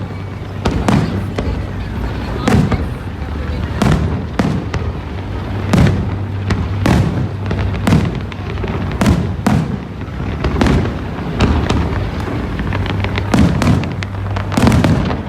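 Aerial fireworks display: a continuous run of sharp bangs and booms, about one or two a second, each ringing out briefly.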